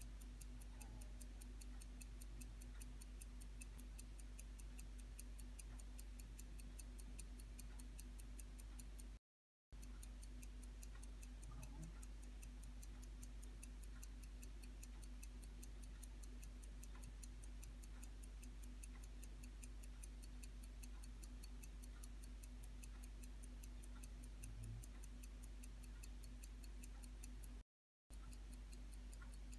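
Swiss FHF (Fontainemelon) 15-jewel pocket watch movement ticking, a faint, rapid, even tick of the running escapement, over a steady low hum. The sound drops out briefly twice, about nine seconds in and near the end.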